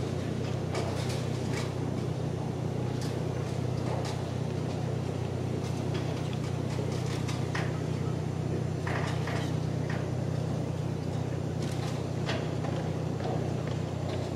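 Room tone of a large hall with a standing crowd: a steady low hum, with scattered small knocks, shuffles and footsteps.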